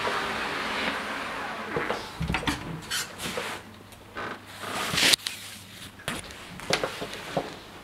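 A cupboard door being opened and handled, with knocks, clicks and rustling, and one loud clunk about five seconds in.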